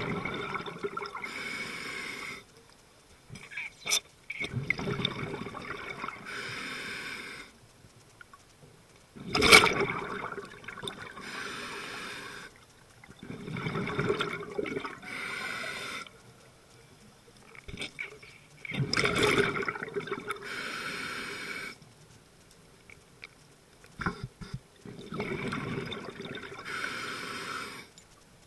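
A scuba diver breathing underwater through a regulator: a regular cycle about every five seconds, each breath a rush of exhaled bubbles followed by the hiss of the regulator.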